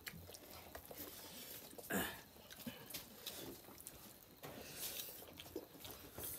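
Faint eating sounds of a person chewing a mouthful of rice and chicken curry eaten by hand, with small wet mouth clicks and one louder click about two seconds in.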